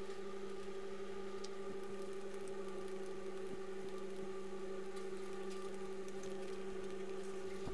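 Steady electrical hum with a few faint clicks.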